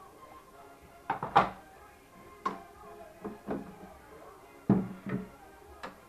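Plastic housing parts of a Jura E8 coffee machine being handled during disassembly: a series of sharp clacks and knocks, the loudest about one and a half seconds in. Faint background music runs underneath.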